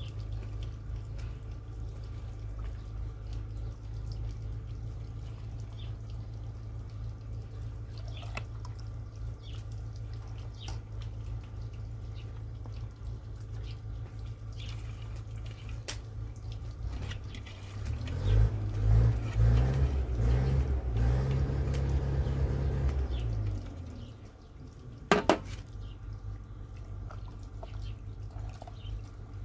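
A metal ladle stirs chopped herbs into a pot of thinned yogurt, making wet sloshing with small scattered clicks, and one sharp clink of the ladle against the metal pot near the end.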